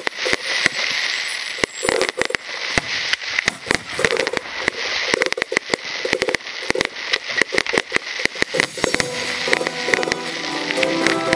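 Aerial fireworks going off in a rapid, irregular string of crackling pops and bangs. Music with steady pitched notes comes up underneath near the end.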